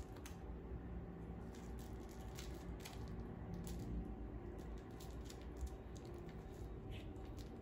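Faint, scattered rustles and soft taps of a cat wrestling and kicking at a small soft catnip toy on a shag rug, over a steady low room hum.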